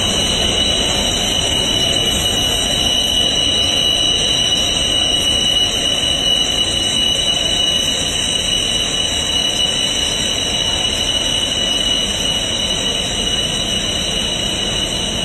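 A JF-17 Thunder fighter's jet engine, a Klimov RD-93 turbofan, running steadily on the ground. It is a constant loud rush of noise with a high whine held on one pitch.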